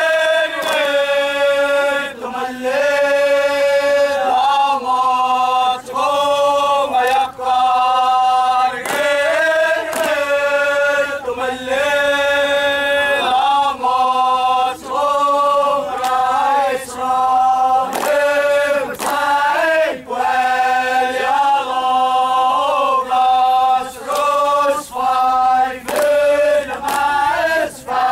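Yapese bamboo stick dance: a group of dancers chanting in unison on held, stepping notes. Sharp clacks of bamboo sticks struck together come in at irregular intervals.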